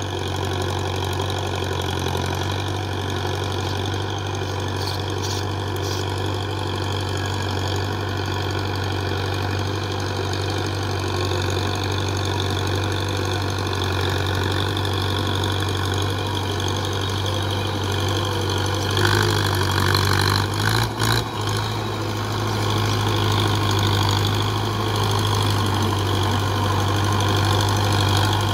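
Tractor diesel engine running steadily under load as it pulls a puddling implement through a flooded rice paddy, growing slowly louder toward the end as it comes closer. A brief cluster of knocks about two-thirds of the way through.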